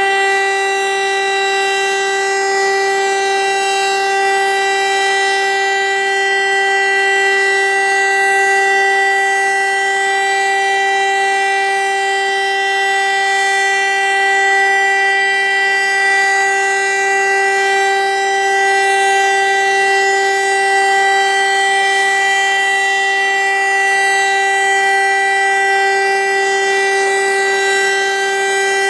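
VEM DS 977 electric mechanical rotor siren running at full speed, holding one loud, steady pitch with strong overtones: the continuous tone of a siren test.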